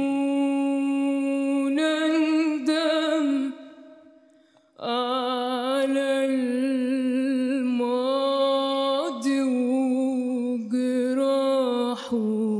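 A young woman singing an Arabic song unaccompanied, holding long notes with vibrato and small ornamental turns. She breaks off for a breath about four seconds in, then carries on.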